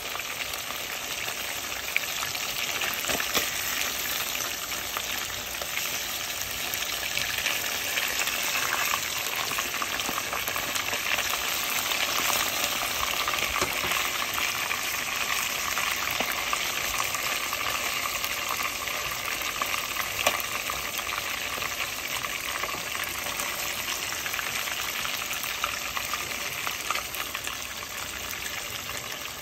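Whitefish steaks deep-frying in hot oil in a deep pot: a steady, dense sizzle with a few sharper clicks now and then.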